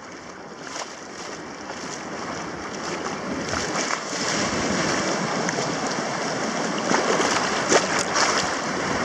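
Small sea waves breaking and washing up a sandy shore at close range, a steady rush of surf that grows louder, with a few sharper splashes near the end.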